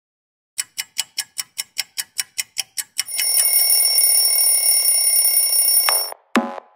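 Soundtrack intro: a fast, even clock-like ticking, about five ticks a second, then a ringing like an alarm bell for about three seconds that cuts off suddenly. Pulsing electronic beat notes follow, about two a second.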